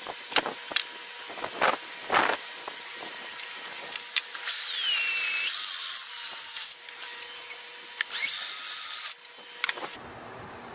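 DeWalt cordless drill boring holes through a plastic gauge pod for the gauge wires, in two runs. The first lasts about two and a half seconds, its motor whine falling in pitch as the bit bites. The second is a shorter run of about a second. A few knocks and clicks come before.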